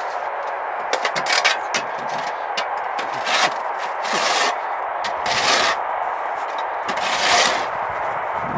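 Snow shovel scraping packed snow and ice off a road surface: several rough scrapes, a second or two apart.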